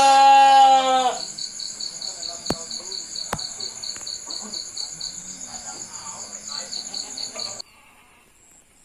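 A goat bleats once, loudly, in the first second. Crickets chirp in a steady, fast-pulsing high trill until the sound cuts off abruptly near the end, with two sharp clicks partway through.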